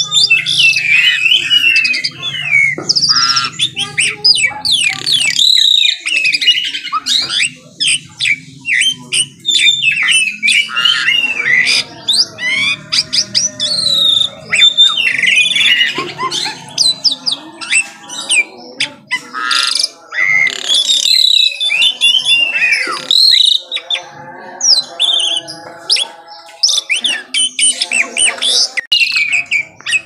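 White-rumped shama singing a long, varied song: loud whistled phrases of quick rising and falling notes mixed with chattering, with only brief pauses between phrases.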